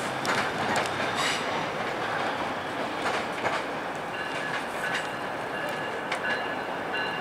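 Union Pearson Express diesel multiple unit's wheels clacking irregularly over the yard switches and rail joints. About halfway through, a thin wheel squeal at two pitches starts and comes and goes.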